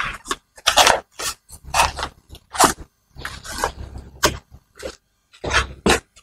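Padded fabric seat cushion being pressed and pushed down into a child tricycle's plastic seat: irregular scraping and crunching rubs, with a few sharper clicks.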